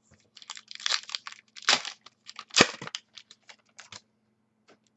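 Foil trading-card pack wrapper being torn open and crinkled, with the cards rustling and clicking as they are handled: a string of irregular rustles and crackles, loudest in the middle, that fades out near the end.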